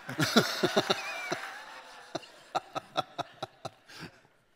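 A man laughing close to a handheld microphone: a run of short chuckles that trails off near the end.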